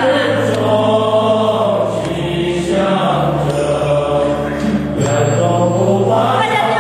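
Choir of Buddhist monks, men's voices singing a slow chant-like song together, holding each note for a second or more.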